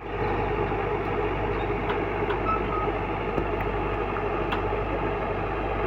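Excavator's diesel engine running steadily, with a few faint light clicks over it.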